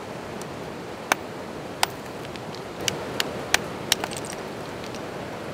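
A steel rock hammer striking an outcrop of rock: about six sharp, irregular knocks, over the steady rush of river rapids.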